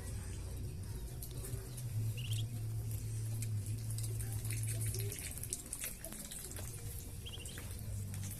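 Ducklings giving two brief high peeps, about two seconds in and near the end, over an irregular patter of small clicks and a low steady rumble.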